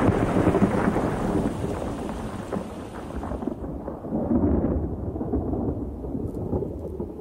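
Thunder rumbling, loudest at the start and dying away, with a second rolling rumble about four seconds in.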